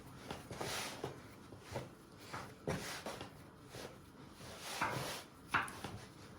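Hands kneading a flour, water, egg and oil dough for vareniki: a string of soft, irregular slaps and presses, about one or two a second.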